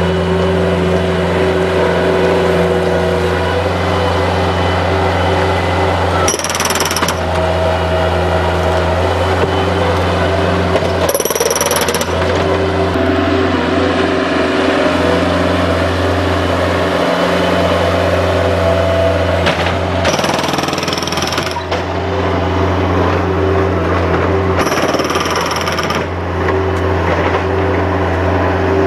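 Bobcat skid-steer loader working on old driveway concrete: its engine runs steadily under load over a rapid, continuous jackhammer-like hammering as the concrete is broken up. A few short, bright, high-pitched bursts cut in about 6, 11, 20 and 25 seconds in.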